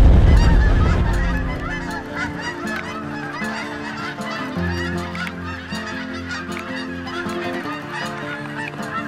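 A flock of Canada geese honking, many short calls overlapping. A low rumble fades out over the first second or two.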